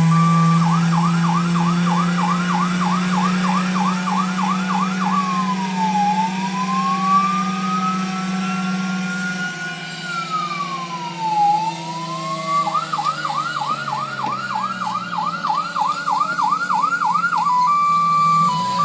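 Fire truck siren cycling through its patterns: a rapid yelp of about four sweeps a second, then a slow wail that falls, rises and falls again, then the rapid yelp once more. A steady low hum runs beneath it and fades about halfway through.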